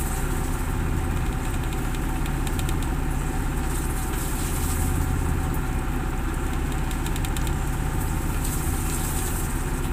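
A fishing boat's engine running steadily, a continuous low drone.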